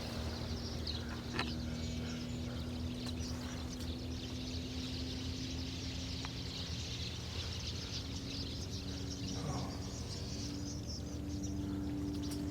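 A flock of birds chattering and calling all at once, a dense run of high chirps, over a steady low hum.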